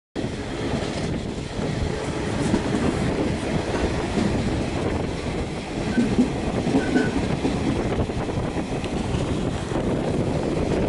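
Passenger train running along the track, heard from a coach window: a steady rumble of wheels on rails with a faint clickety-clack. It cuts in abruptly at the start.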